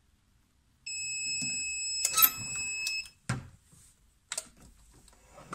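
Heat press timer alarm: a steady high electronic beep for about two seconds, signalling the end of the pressing time. A sharp clack comes during the beep, and a couple of knocks and clicks follow after it stops.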